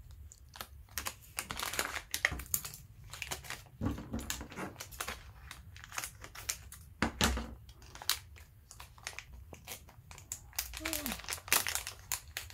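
Clear plastic parts bag crinkling and rustling as it is handled, cut open and emptied, in a run of irregular crackles.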